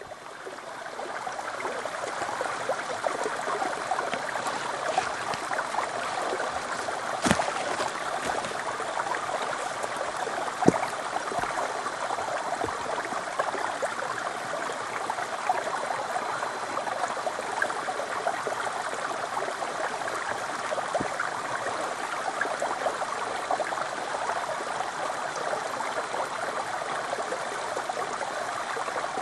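Small mountain stream running in a thin sheet down a mossy rock slab into a pool: a steady trickling rush that fades in over the first second or two. Two brief clicks stand out, about seven and eleven seconds in.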